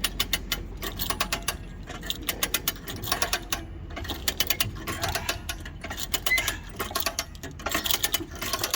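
Hand-cranked winch ratcheting as its cable draws a vehicle onto a trailer: rapid pawl clicks in runs, with short pauses between strokes of the crank.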